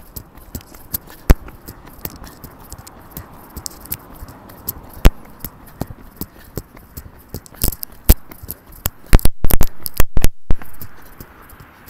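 Handling noise on a handheld camera's microphone while walking: irregular clicks and knocks, with a burst of very loud ones and brief cut-outs about nine to ten seconds in.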